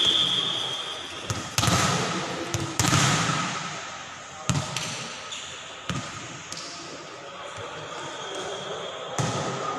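Volleyball being struck and bouncing on a hard indoor court: about five sharp smacks, irregularly spaced, each echoing in the hall. A shrill referee's whistle note ends about half a second in, and players' voices are heard underneath.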